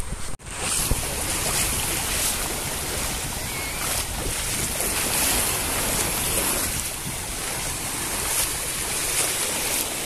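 Small waves washing in over sand and low rocks at the water's edge: a steady rush of surf that gently swells and eases.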